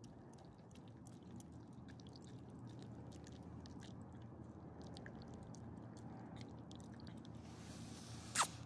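Small elderly dog licking and chewing food from a person's palm: many soft, wet little clicks and smacks. A brief, loud scrape comes near the end.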